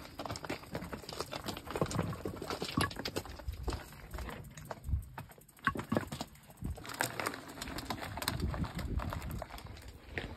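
Footsteps crunching on a loose, stony trail while a mountain bike is pushed uphill over rocks, with irregular clicks and knocks from the stones and the bike.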